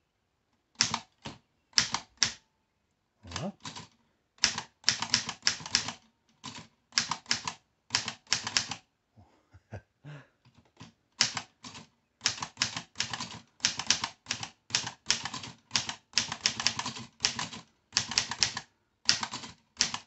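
1924 Corona Three folding typewriter typed on slowly with two fingers: sharp clacks of the typebars striking the platen, in uneven runs of a few strokes with short pauses, and a longer gap near the middle.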